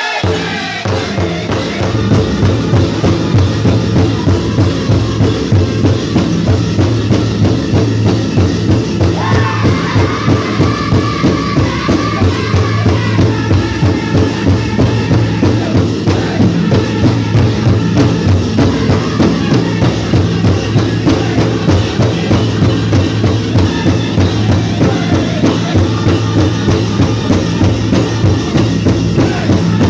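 Powwow drum group playing a steady beat on a large drum, about two beats a second, with the singers' voices rising high around ten seconds in.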